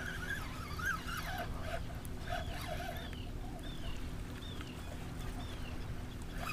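Birds calling: wavering calls early on give way, about two seconds in, to a run of short arched whistled notes repeated about twice a second, over a steady low background of wind and water.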